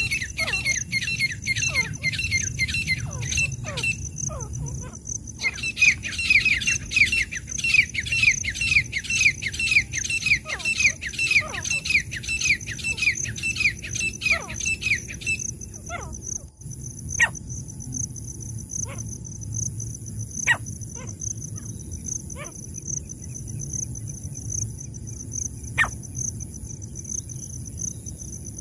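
Francolin (teetar) calling: a fast run of short, down-slurred notes, about three a second, breaking off about four seconds in, resuming, and stopping about halfway through, followed by a few sharp single clicks. A steady high insect trill runs underneath.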